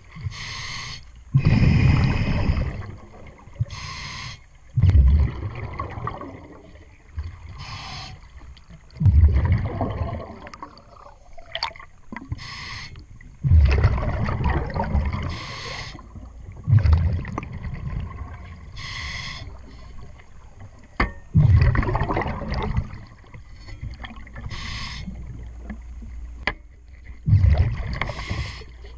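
Scuba diver breathing through a regulator underwater: a short hiss on each inhale, then a low rumble of exhaled bubbles, about eight breaths in a steady rhythm.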